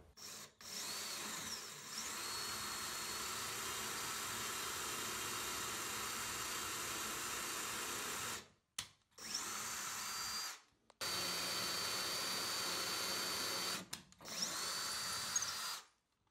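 Cordless drill running, boring pilot holes through drywall into the wood blocking behind it. It runs once for about seven seconds, then three more times in shorter runs, with a steady high whine.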